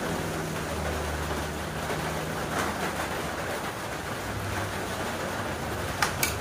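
A steady rushing background noise with a faint low hum. About six seconds in come two sharp clinks close together as a metal ladle is set down on a plate.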